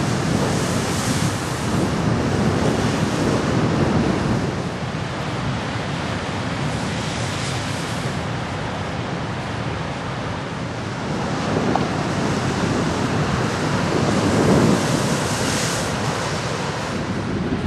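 Ocean surf washing in continuous rushing noise that swells louder near the start and again in a long surge toward the end, with wind blowing across a windscreen-covered microphone.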